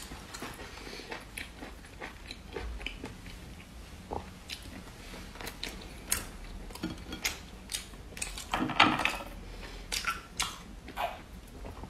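Close-up chewing and biting of a rice-and-blood sausage whose casing is tough and hard. The sound is a scatter of short wet clicks and smacks, busiest a little before the nine-second mark.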